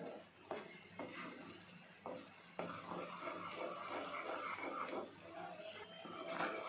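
A spatula stirring a boiling, frothy liquid in a non-stick kadai, scraping along the pan, with a few sharp knocks of the spatula against the pan in the first three seconds.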